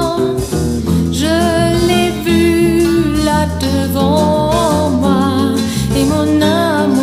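A woman singing a slow chanson melody with held notes and vibrato, over a guitar-led accompaniment.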